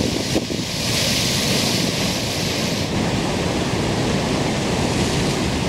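Ocean surf breaking on a rocky shore, a steady rush of water with a louder, hissing surge of spray about a second in.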